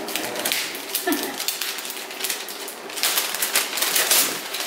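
Gift wrapping and packaging rustling and crinkling as a present is unwrapped: a run of short, dense crackles that thickens about three seconds in.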